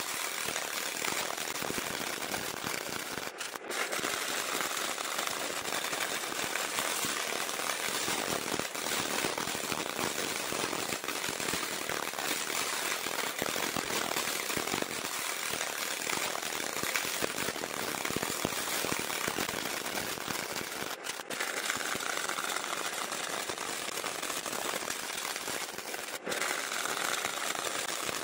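CO2 semi-automatic welding arc crackling steadily as a bead is run on 32 mm thick steel plate in a multipass horizontal weld. The crackle breaks off very briefly three times.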